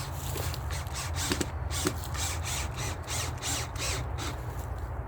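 Battery-powered drill driving a screw through a stick into a tree trunk, in a run of short bursts.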